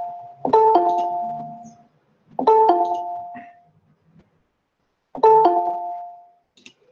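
Google Meet notification chime, a two-note descending ding-dong, sounding three times: about half a second, two and a half seconds and five seconds in. Each chime marks participants joining the call.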